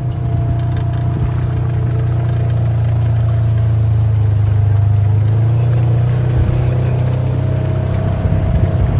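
Side-by-side UTV engine running steadily under way on a rough trail, with a few knocks and rattles near the end.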